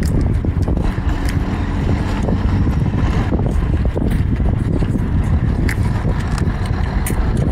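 Steady low rumble of wind buffeting the microphone outdoors, with a few faint clicks of shellfish shell being handled and pulled apart.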